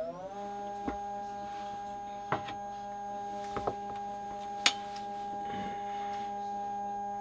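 Epson V750 flatbed scanner's stepper motor whining as the scan head moves for a preview scan: the pitch rises as the carriage gets going, then holds steady. A few light knocks sound over it, the sharpest a little past halfway.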